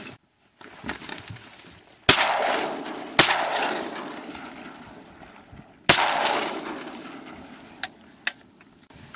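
Three shotgun shots: two about a second apart, then a third nearly three seconds later. Each trails off in a long rolling echo.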